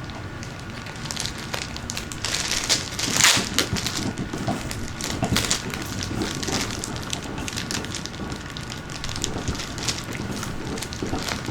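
Plastic bag crinkling and crackling in the hands as someone struggles to pull it open, loudest about three seconds in.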